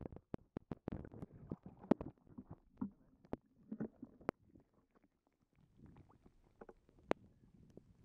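Muffled sloshing water and irregular sharp clicks and knocks on a small fishing boat as a bass is swung aboard on a crankbait, picked up through an action camera's waterproof housing.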